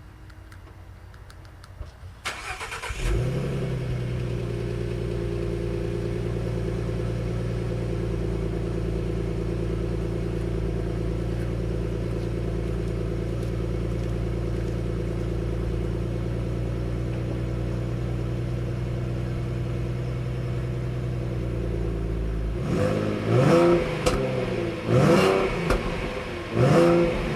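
A 2016 Ford Mustang's 3.7-litre V6 starting up and settling into a steady idle through its exhaust, then revved three times in quick blips near the end.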